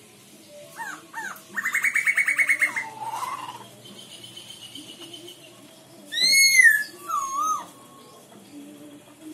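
Caged black-throated laughingthrush calling. It gives two short rising notes, then a fast rattling trill of about ten notes a second that ends in a falling slur. Later comes a loud arched whistle, the loudest call, followed by a short wavering lower note.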